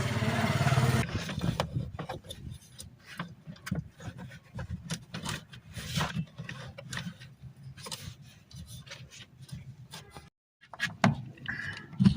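Washing machine motor running with a steady hum, cutting off suddenly about a second in, followed by scattered clicks and knocks from handling it over a fainter low hum.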